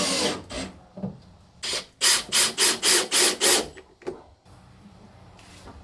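Cordless drill running in short bursts. A steady run stops just after the start, then comes a row of about six quick pulses, roughly three a second, about two seconds in.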